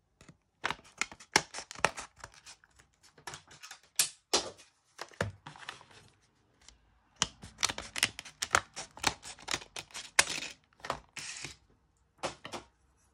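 Scissors snipping through stiff clear plastic blister packaging, with the plastic shells clicking and crackling as they are handled: a rapid, irregular run of sharp snaps and clicks.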